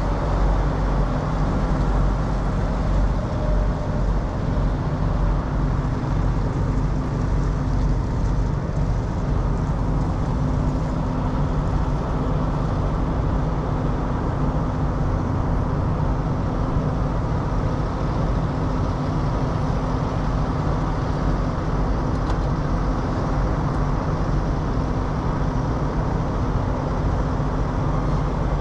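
Diesel semi-truck engine idling with a steady low drone, over a haze of road traffic.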